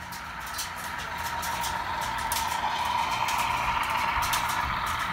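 HO scale model freight train rolling along the track, its wheels clicking over the rail joints. It grows louder as the diesel locomotive passes close by, then eases off slightly near the end.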